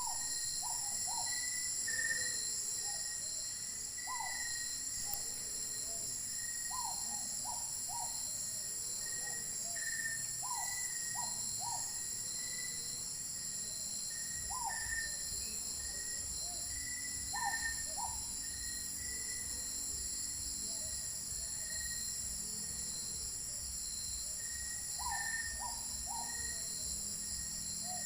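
Night chorus of insects, a steady high trilling, with an unidentified animal giving short calls in clusters of two to four every few seconds, and fainter intermittent chirps.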